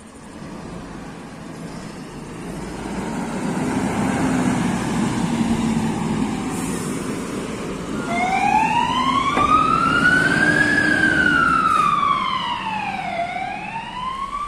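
Fire engine's diesel engine running and growing louder as the truck pulls out and drives past. A little past halfway its siren starts in a slow wail: one long rise, a fall, then rising again at the end.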